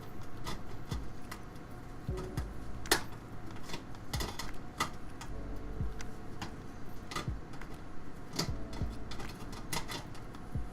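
Irregular sharp clicks and light taps of hard parts being handled, one or two a second, with one louder click about three seconds in.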